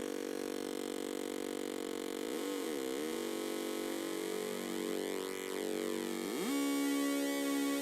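Two breadboarded Atari Punk Consoles, 556-timer square-wave noise synths, droning together in a buzzy, stepped chord. About two and a half seconds in, the pitch dips and comes back. Near the end it glides down and jumps to a new, louder drone as the tuning shifts.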